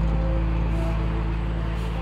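Background music with sustained low notes and held chords.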